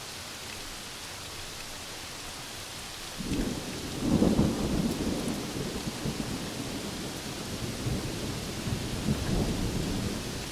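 Steady heavy rain, with a clap of thunder about three seconds in that rumbles and rolls on for some seven seconds, peaking just after it starts and fading out near the end.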